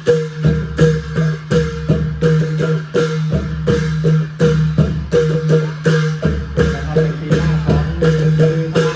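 Thai klong yao long-drum ensemble music: dense, quick percussion strokes in a steady rhythm over a low held drone.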